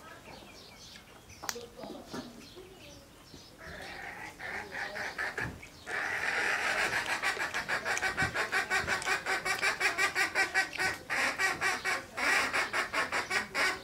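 Farmyard poultry calling: a fast run of repeated calls, about four a second, that starts about three and a half seconds in and gets much louder about six seconds in, with a couple of short breaks.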